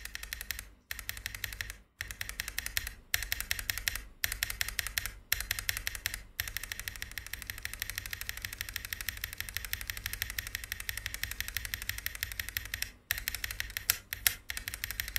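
Mechanical keyboard with Moyu Studio x XCJZ Snow Grape linear switches (POM stems, nylon bottom housings) being typed on fast, in bursts of rapid keystrokes broken by brief pauses, with a long unbroken run in the middle. The switches sound fairly loud and smooth.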